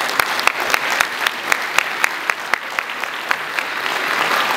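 Congregation applauding, with one person's claps close to the microphone standing out at about four a second until about three and a half seconds in, while the rest of the applause carries on.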